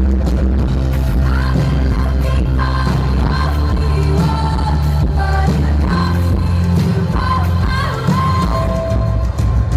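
Live pop concert: a female singer's voice over a full band with heavy, steady bass, heard through a poor-quality audience recording.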